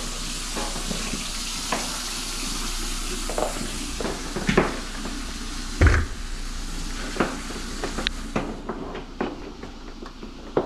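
Cable drain-cleaning machine running a sewer cable into a grease-clogged kitchen drain line, with a steady hiss and a low hum. Sharp knocks and clanks from the cable are heard now and then, and the hiss drops away about eight seconds in.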